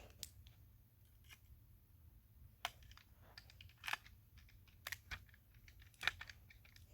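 Scattered small clicks and taps, about seven at irregular intervals, as the parts of a diecast toy car are handled during assembly.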